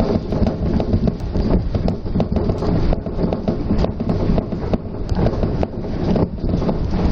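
Inside a car of the Shonan Monorail, a suspended monorail, running between stations: a steady rumble with many small knocks and rattles.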